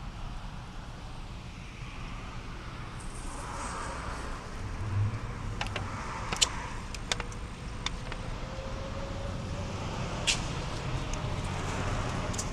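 Steady low background hum with a few faint clicks and soft handling noises, likely from a chili cheese dog being unwrapped, bitten and chewed close to the microphone.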